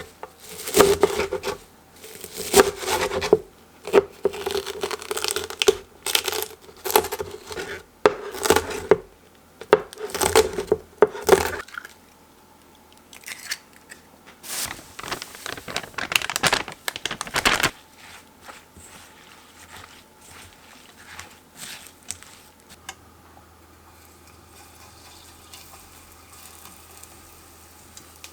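Irregular crinkling and rustling in quick bursts, sparser after about twelve seconds and stopping by about eighteen, followed by a faint steady hum.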